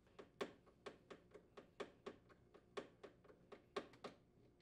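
A series of faint, uneven clicks, about three a second, from a quarter-inch nut driver threading a mounting screw into a plastic refrigerator freezer drawer glide.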